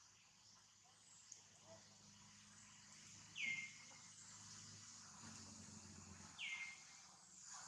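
A bird calls twice, about three seconds apart, each call a short whistle that drops quickly in pitch and then holds briefly, over a faint steady high hiss.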